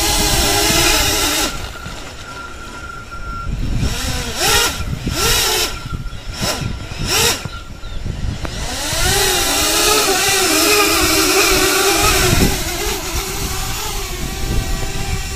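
Brushless motors and propellers of a 7-inch FPV quadcopter whining. The whine drops back about a second and a half in, then rises in several short throttle blips. From about 9 s it is held steady at higher power and eases off again near 12.5 s.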